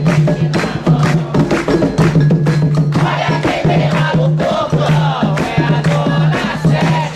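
Hand drums beating a fast, driving rhythm while a group chants a ritual song, with sharp clacking percussion strokes over the top.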